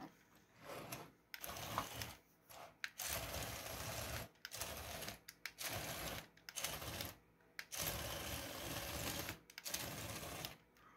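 Small TT gear motor of a 3D-printed toy bulldozer, driving its plastic gears and print-in-place tracks, whirring in about eight short runs of one to two seconds as it is switched on and off by remote control.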